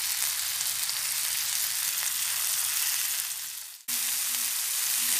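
Beef steaks sizzling as they fry in shallow sunflower oil on a thick dosa griddle, a steady hiss that fades out briefly about two-thirds of the way through and comes straight back.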